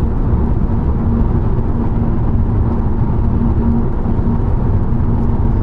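Steady road noise inside a car's cabin at highway speed: low tyre and wind roar with a constant engine hum.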